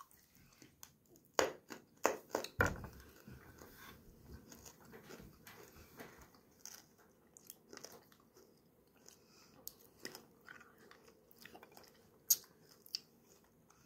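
A person chewing a blue raspberry sour hard candy with a soft, gooey centre. Several sharp crunches come in the first few seconds, then quieter, irregular chewing, with one sharper crunch near the end.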